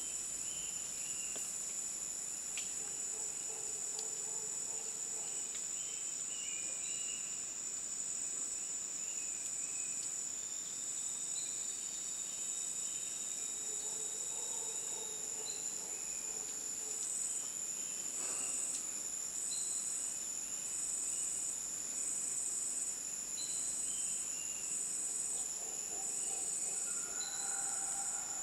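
Tropical forest insect chorus: a steady, high-pitched, unbroken drone, joined a bit past the middle by a second high call pulsing about once a second, with scattered short chirps and calls from other animals.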